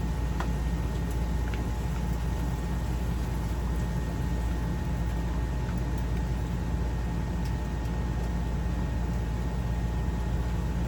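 A steady low machine hum with a faint high whine and a hiss over it, and a few faint ticks.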